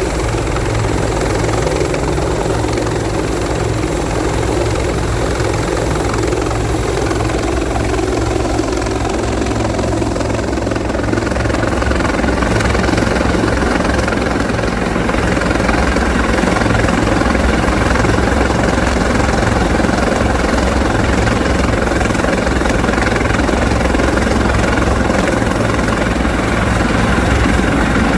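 Bell 412EP helicopter running, with steady rotor noise and turbine whine. About ten seconds in, a whine falls in pitch, and then the sound grows a little louder.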